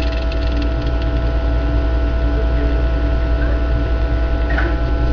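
Refrigerator running with a steady hum: a low drone with a few steady higher tones above it.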